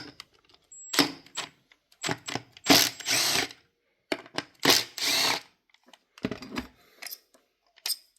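Power driver spinning out the ignition coil hold-down bolts in four short runs, with clicks and knocks from the tool and parts between runs.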